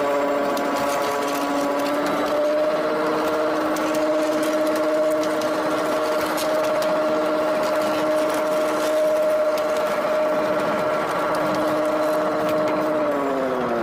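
Homemade mini rail cart running along its narrow-gauge track: a steady whine of several tones from the running gear. It shifts up in pitch about a second and a half in and falls near the end, with scattered light clicks of the steel wheels on the rails.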